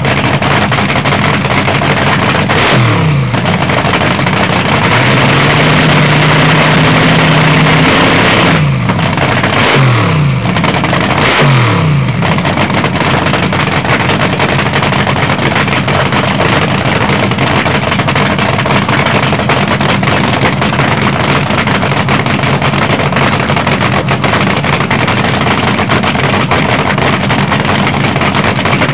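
Supercharged nitromethane-burning V8 of a front-engine fuel dragster cackling at idle, loud and uneven. It is blipped several times in the first dozen seconds: a quick rev about three seconds in, a longer held rev from about five to eight seconds, then three short blips, each falling back to idle. After that it settles into a steady cackling idle.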